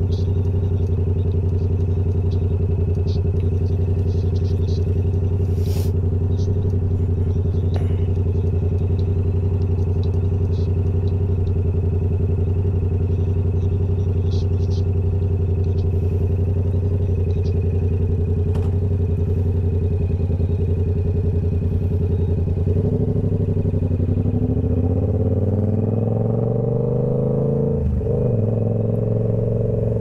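Yamaha R7's 689 cc parallel-twin engine through a Toce full-system exhaust, holding a steady note while the bike is ridden. Over the last few seconds the engine note changes pitch, with a brief break in it near the end, as with a gear change.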